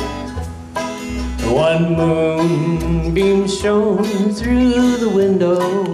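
Live bluegrass band playing: a fiddle takes the lead with a melody that slides up about a second and a half in, over acoustic guitar, banjo and a steady upright bass.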